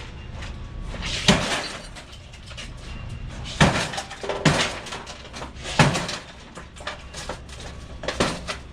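Scrap being handled: a run of about five separate knocks and clatters a second or so apart, over a low steady hum.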